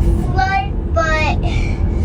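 A small child's high-pitched voice in short sing-song phrases, over a steady low rumble.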